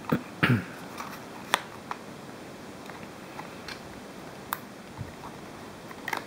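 Scattered clicks and taps of a small Apple earphone case being handled and opened by hand, with a couple of louder knocks in the first second and a short cluster near the end.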